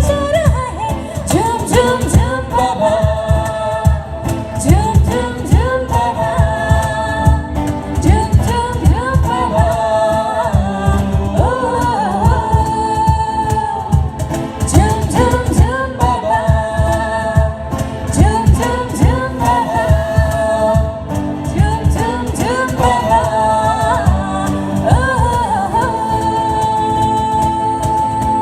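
A song: a lead voice singing a melody with gliding and long-held notes over a steady beat.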